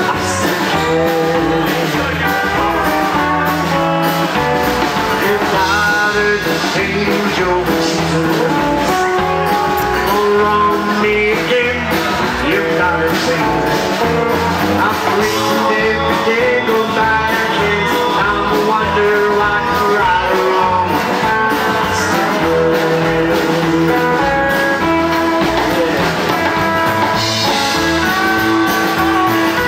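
Live rockabilly band playing a song on electric guitar, upright bass, stage keyboard and drums.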